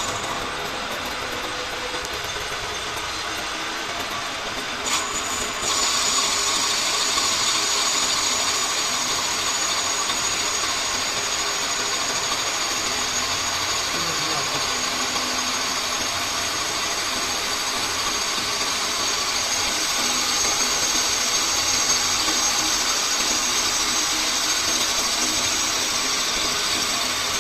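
Metal lathe running in a steady drone with a high hiss, which steps up louder about six seconds in.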